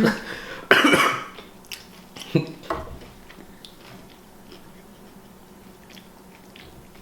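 A person coughing or clearing the throat about a second in, then faint chewing and mouth clicks from eating.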